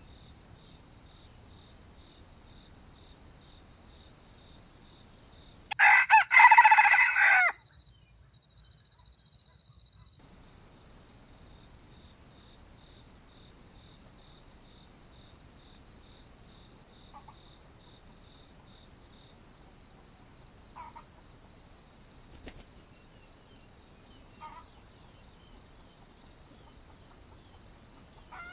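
A junglefowl rooster crows once, loud and about a second and a half long, about six seconds in. A few short, soft clucks follow later. A steady high insect buzz runs underneath.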